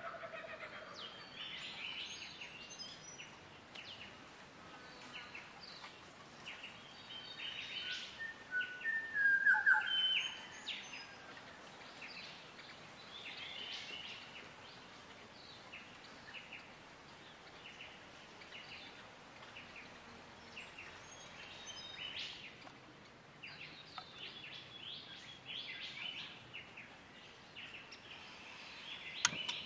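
Wild birds chirping and calling, many short high chirps throughout, loudest about nine to ten seconds in. A single sharp click near the end.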